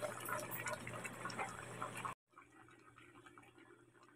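Pork tinola broth simmering in a wok, a faint crackle of small bubbles popping; about two seconds in the sound cuts off abruptly to near silence.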